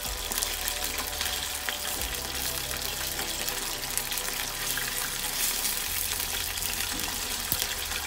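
Marinated chicken pieces shallow-frying in hot oil in a small wok, turned to cook the other side: a steady sizzle with fine crackling.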